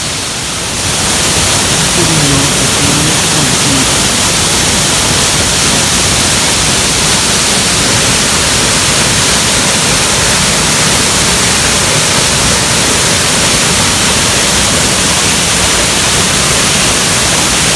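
Waterfall's falling water rushing, a loud, steady, even noise that grows louder about a second in.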